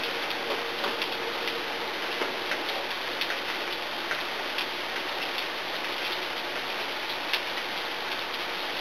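Onions and eggplant sizzling steadily in a frying pan, with irregular knife taps on a cutting board as a green pepper is chopped. One sharper knock comes about seven seconds in.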